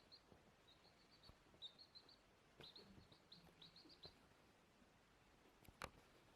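Faint, short high-pitched chirps from a small animal, coming in quick runs of several and stopping about four seconds in. A single sharp click near the end.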